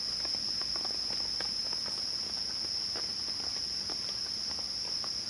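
Steady, high-pitched chorus of forest insects, with faint scattered light ticks and taps.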